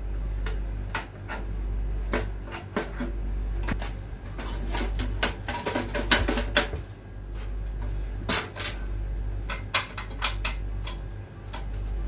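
Irregular clicks, knocks and light metallic clatter from hands working wire connectors and metal parts inside an opened microwave oven chassis, busiest about halfway through. A low hum runs underneath.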